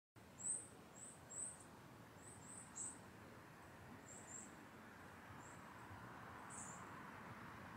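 Small birds chirping faintly: a dozen or so short, high chirps at irregular intervals, most of them in the first three seconds, over a soft steady outdoor hush.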